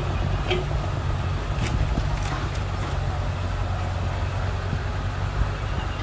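Steady low hum of an engine running, with a few faint light clicks in the first three seconds.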